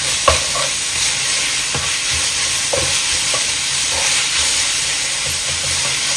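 Sliced pork and garlic sizzling in a hot nonstick wok, stirred and scraped with a spatula, with a few short knocks of the spatula against the pan, the sharpest about a third of a second in.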